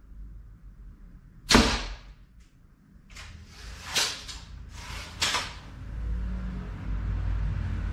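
A shot from a slingshot rifle striking a T-shirt-wrapped ballistic gel target: one sharp, loud crack about a second and a half in. Several softer clicks and knocks follow.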